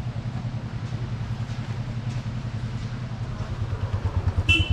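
An engine idling with a steady low throb that grows louder toward the end. Just before the end there is a brief high-pitched chirp.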